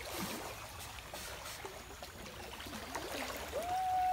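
Shallow forest stream flowing and trickling. About three and a half seconds in, a long clear tone starts and holds, slowly falling in pitch, louder than the water.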